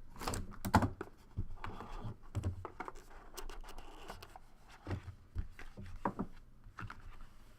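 Hands opening a trading-card box and handling its packaging and cards: scattered scratching and scraping with light clicks.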